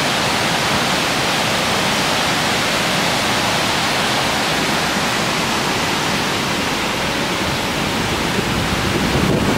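Mountain river rushing over boulders and small rapids: a steady, even rush of white water.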